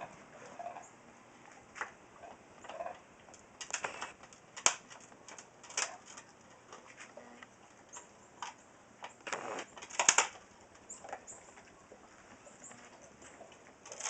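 A pet gnawing and crunching on a chew bone: irregular clicks and scraping bites, loudest in clusters about four and ten seconds in.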